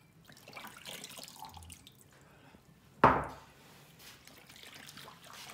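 Hands sloshing and splashing water in a well of flour in a wooden kneading trough, mixing in sourdough starter. About three seconds in comes one sudden loud slap or thump, the loudest sound here.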